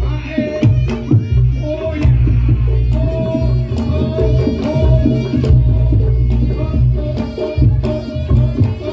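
Reog Ponorogo gamelan music: kendang hand drums beating over a heavy low drone, with a held, wavering melody tone and many sharp clacks and strikes.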